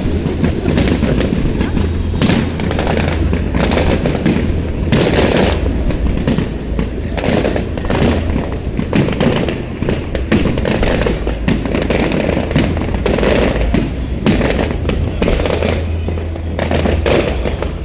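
Fireworks going off in a dense, continuous barrage: many sharp bangs and crackles in quick succession.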